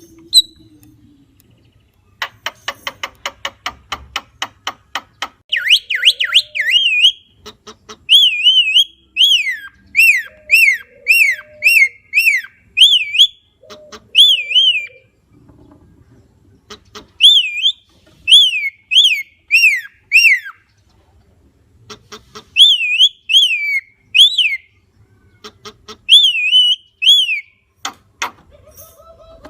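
Javan myna singing: a fast rattle of clicks, then phrases of loud, repeated whistled notes that rise and fall, broken by short pauses.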